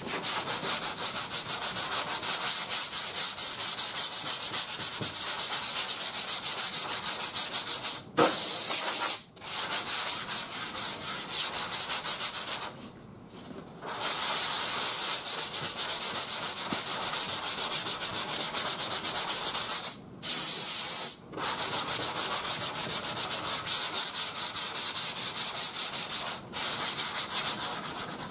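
Sandpaper on a rubber hand block scrubbed back and forth over primer surfacer on a car panel: continuous stroke-by-stroke scratching, broken by a few short pauses. This is block sanding to cut the remaining guide coat out of the low spots.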